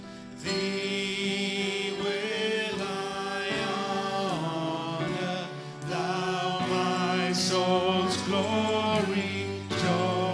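Voices singing a slow church song in long, held notes with vibrato, with a brief pause for breath just before the midpoint.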